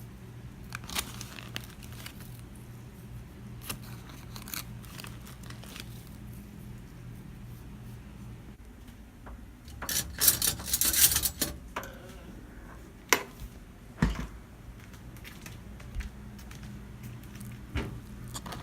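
Spoon stirring instant oatmeal in a bowl: scattered clicks and knocks against the bowl, with a loud burst of rustling about ten seconds in. A steady low hum runs under the first half and returns near the end.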